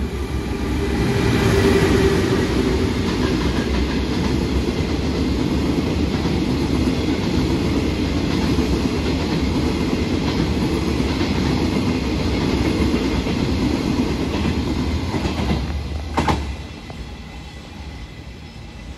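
Electric-hauled freight train of flat wagons loaded with long rails passing close by, a steady rumble with wheels clacking over the rail joints. About sixteen seconds in there is one sharp loud clack, then the sound drops off as the train moves away.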